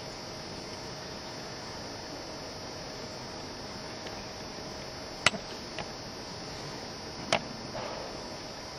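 Steady background hiss with faint high steady tones, broken in the second half by two sharp clicks about two seconds apart and a smaller tap between them.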